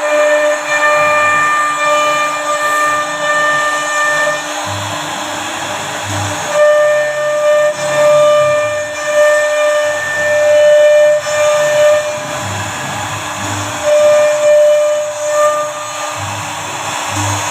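CNC router spindle whining steadily as it cuts wood, with a hiss of cutting underneath. The whine drops back for a second or two a few times and comes in again, and low rumbles come and go beneath it.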